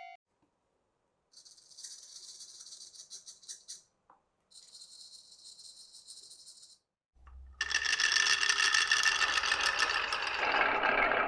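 Marbles rolling and rattling down a toy marble-run track. There are two thin, high-pitched rattling runs with a short gap between them. About seven seconds in a soft knock comes, then a much louder, fuller rattling with a ringing edge.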